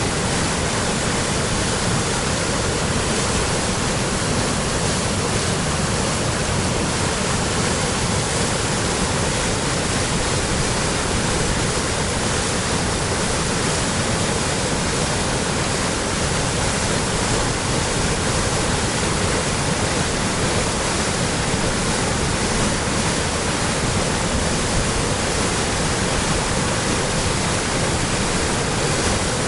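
Waterfall on the Pryamaya river, falling water rushing loudly and steadily without a break.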